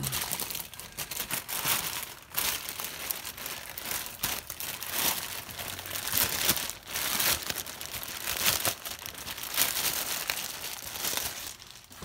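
Crinkling of the packaging around a new brake caliper as it is handled and unwrapped.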